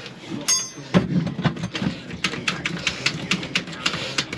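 Hand tools being worked on metal: a short metallic ring about half a second in, then a run of sharp clicks and knocks, two or three a second.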